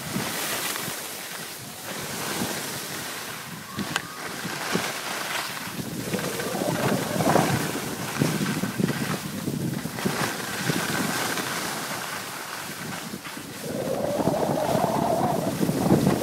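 Wind buffeting the microphone of a moving handheld camera, with skis hissing and scraping over packed snow. The noise swells from about halfway through.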